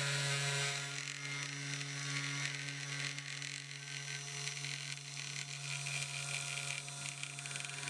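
3018 PRO CNC router running steadily as it mills a linden wood block: a constant spindle-motor hum and whine with a hiss of cutting over it.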